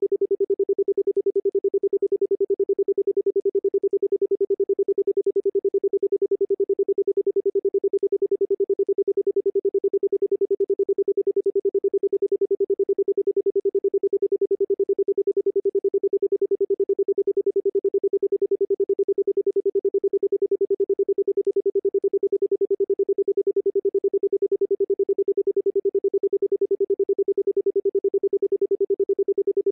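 Electronic pure tone held at one steady pitch, pulsing rapidly and evenly in loudness: a sound-therapy frequency tone.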